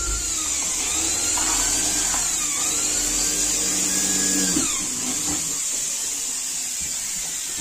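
A power tool whining, its pitch rising and falling several times over a steady high hiss, easing off about five seconds in.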